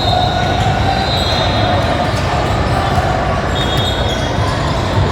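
Sounds of basketball play in a gym: several high squeaks from sneakers on the court over a steady din of the crowd and players, with scattered ball bounces.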